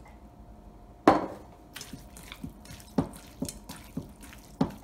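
Water poured into a stainless steel bowl of sliced flank steak being marinated, then fingers squishing and mixing the wet meat, with irregular short wet slaps and taps against the bowl. One sharper knock about a second in is the loudest sound.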